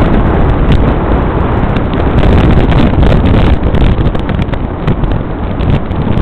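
Loud wind buffeting the microphone over the steady rumble of a moving vehicle, easing slightly a little past halfway.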